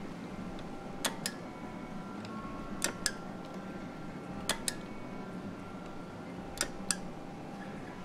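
Sharp mechanical clicks from the push buttons of a homemade start/stop box and its 24 VDC double-pole double-throw relay latching and unlatching: four pairs of clicks, each pair two quick clicks a fraction of a second apart, spread over about six seconds, over a steady low hum.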